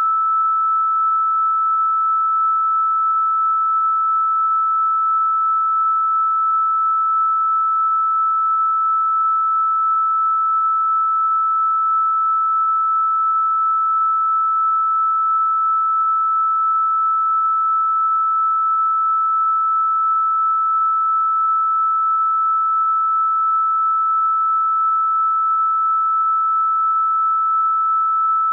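A single pure electronic sine tone held at one fairly high pitch, steady in pitch and level throughout, with no other sound.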